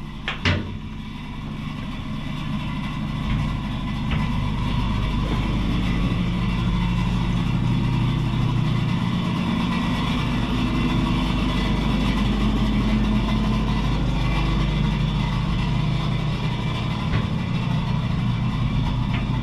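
Steady low machinery hum, like an idling engine, growing louder over the first few seconds and then holding steady. A single knock about half a second in.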